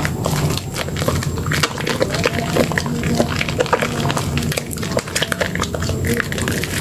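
Hands squeezing and kneading a soaked bar of Dermythol Green soap in thick lather: continuous wet squelching dense with small crackles from the foam.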